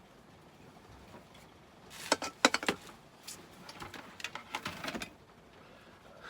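Ethernet cable and its stripped plastic sheathing being handled: a quick run of sharp clicks and crinkling about two seconds in, then softer scattered crackling.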